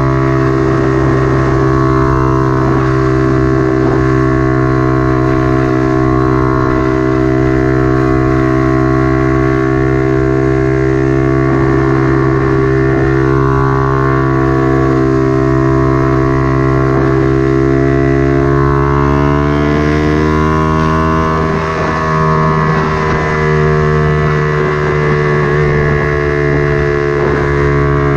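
Motorcycle engine running through a temporary exhaust while riding, a steady drone at even speed that rises in pitch about twenty seconds in as the engine speeds up, then holds there.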